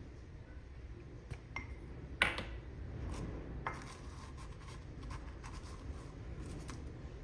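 Light clicks and knocks of small objects being handled, with one louder clatter about two seconds in, over a steady low hum.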